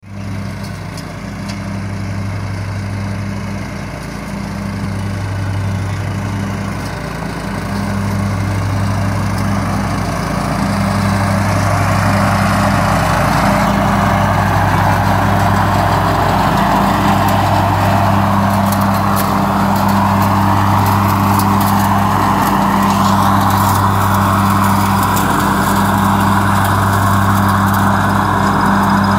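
John Deere LT133 riding lawn tractor's engine running steadily as the tractor drives up close, growing louder over the first dozen seconds and then holding.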